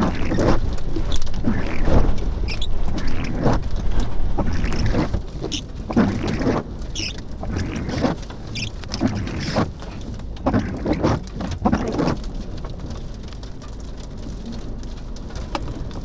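Wind buffeting the microphone: a constant low rumble with irregular gusts, strongest in the first five seconds and easing after.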